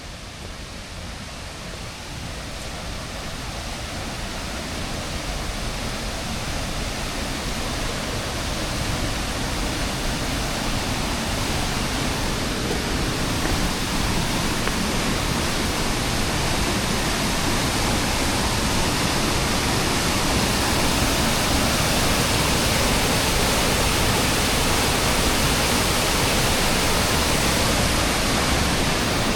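Waterfall rushing, a steady roar of falling water that grows louder over the first dozen seconds or so and then holds even.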